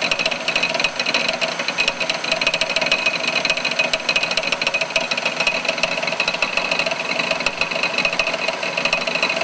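Holden VN Commodore engine running with a loud, fast, steady knocking rattle. The noise comes from a failed harmonic balancer whose rubber has let go, so the outer ring spins loose on its centre.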